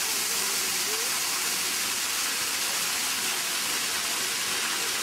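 Waterfall pouring over rocks: a steady, even rushing hiss.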